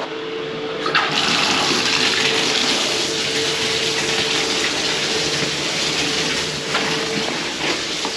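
Toilet flushing: a click about a second in, then a steady rush of water. The drain has just been cleared of a clog, and the flush goes down freely.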